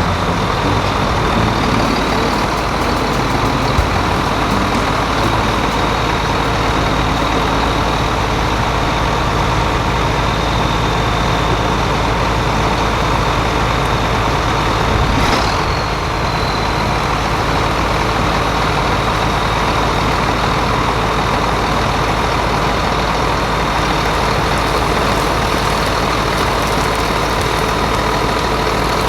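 John Deere 7700 tractor's six-cylinder diesel engine running steadily at idle, with a constant high whine above it. There is one brief sharper sound about halfway through.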